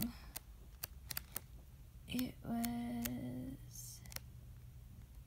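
Book pages being flipped through, a string of light flicks and ticks, with a person humming one steady note for about a second and a half starting about two seconds in.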